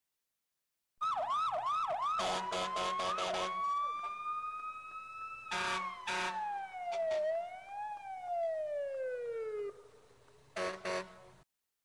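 Police siren: a few quick yelps, then a long wail that slowly rises, falls, rises again and falls before stopping, with sharp clicks of radio static in between.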